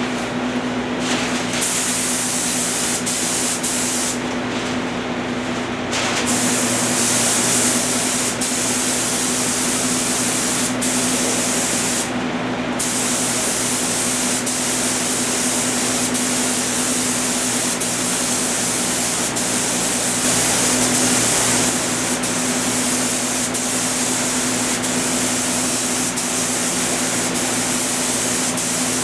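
Paint spray gun hissing as base coat is sprayed, the hiss stopping briefly a few times as the trigger is let off, over a steady low hum.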